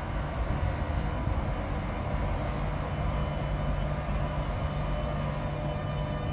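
SBB ETR 610 electric train pulling slowly along the platform, giving a steady rumble with a low electric hum from its traction equipment.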